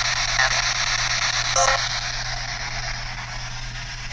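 PSB7 spirit box sweeping through radio stations: a steady static hiss broken by brief clipped fragments of radio sound, the clearest about a second and a half in, over a low steady hum.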